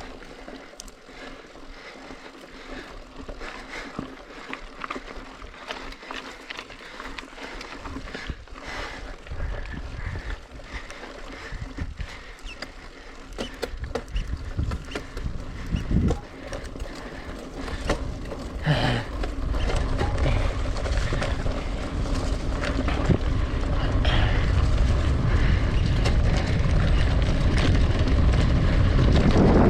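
Mountain bike being ridden over a rough dirt trail: scattered clicks and rattles of the bike over the ground, with wind rumbling on the microphone that grows steadily louder through the second half.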